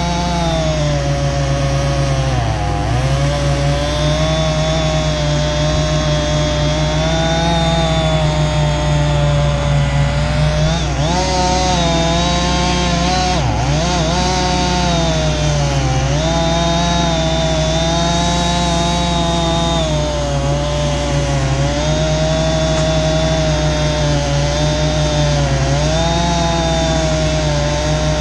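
Husqvarna 576 XP chainsaw, a 74 cc two-stroke, held at full throttle while cutting through a big maple trunk with a 36-inch bar. The saw is giving everything it has to pull the long bar, and its pitch sags briefly under load about six times before climbing back.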